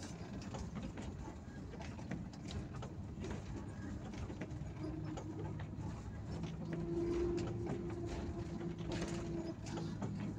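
Bus engine droning steadily while the bus drives slowly, heard from the driver's cab, with small rattles and clicks. Past the middle a higher, louder engine note comes in and holds for about three seconds.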